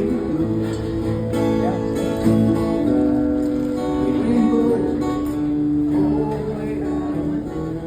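Acoustic guitar playing an instrumental break in a folk song, picked and strummed, with sustained notes.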